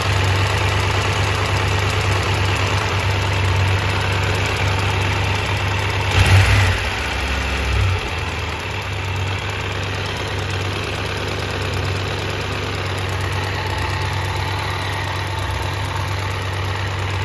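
Triumph Tiger 1200's three-cylinder engine idling steadily with a strange metallic ticking, somewhat like a valve tap, which the owner suspects comes from the cam chain tensioner. A short louder burst about six seconds in.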